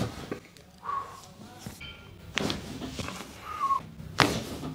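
Chiropractic adjustment: two short, sharp sounds, about halfway and near the end, with a brief falling whistle-like tone shortly before the second.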